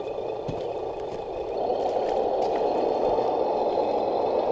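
Radio-controlled scale crawler truck driving over rock: a steady whirring, rushing hiss from its electric motor and gears that grows louder about a second and a half in.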